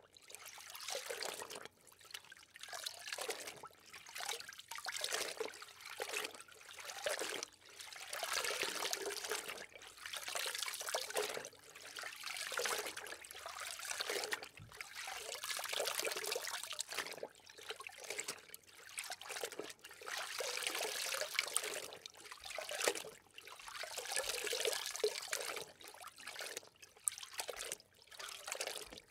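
Water rushing and bubbling, heard underwater, in surges about every two seconds.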